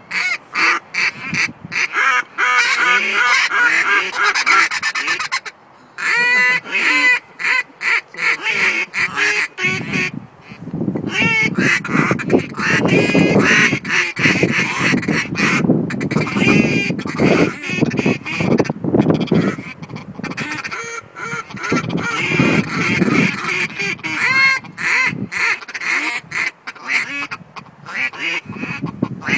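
Several hand-blown duck and goose calls sounding together in fast runs of quacks and honks. The notes are high for about the first ten seconds, then lower and fuller from about eleven seconds in.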